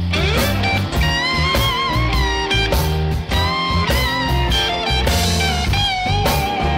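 Background music: blues-rock with a lead electric guitar bending notes over a steady beat.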